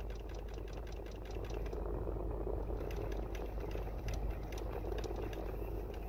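Rapid, irregular clicking from behind the dashboard of a 2006 Lexus RX400h with the climate control in floor mode, over a steady hum. The owner takes it for a failing climate-control servo motor that drives the ventilation doors (blend door actuator).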